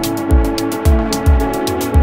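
Electronic background music with a steady beat: a deep kick drum about twice a second, ticking hi-hats and held synth chords.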